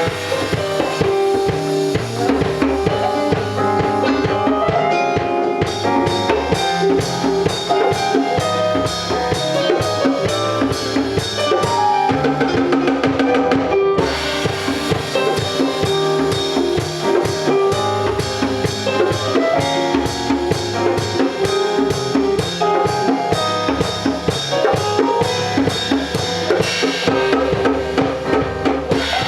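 Instrumental music with a drum kit beat under layered melodic parts; the cymbals and high percussion come in about six seconds in, and the music breaks for an instant about halfway through.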